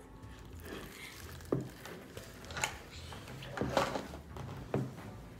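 A whisk stirring thick waffle batter in a glass mixing bowl, knocking against the glass in a handful of sharp clicks about a second apart.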